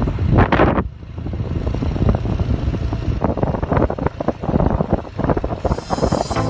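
Low rumble of a moving vehicle with wind buffeting the microphone in uneven gusts.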